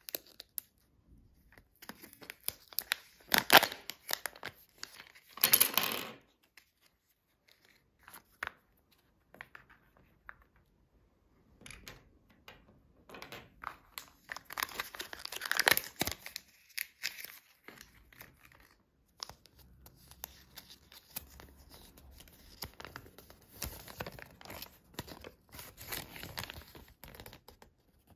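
A Kinder egg's plastic capsule and wrapping being handled and opened by hand: irregular sharp cracks, clicks and tearing rustles, loudest in a few bursts in the first half. Small plastic toy parts click against the table, and the folded paper leaflet crinkles as it is opened out near the end.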